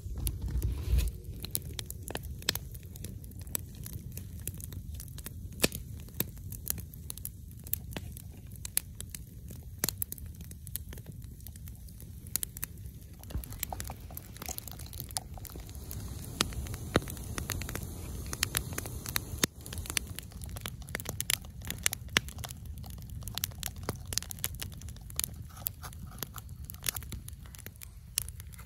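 Wood campfire crackling with irregular sharp pops over a low steady rumble, with a louder low thump about a second in.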